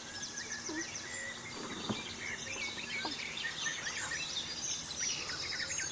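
Many songbirds singing at once: a dense early-morning chorus of overlapping high chirps, trills and whistles.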